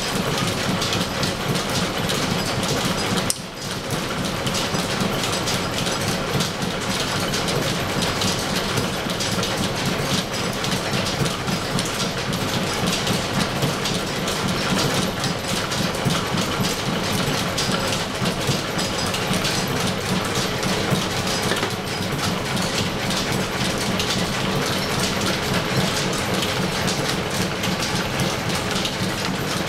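Steam-powered, belt-driven 1884 Brown & Sharpe milling machine running off the shop's line shaft: a steady, rapid mechanical clatter, with a brief dip about three seconds in.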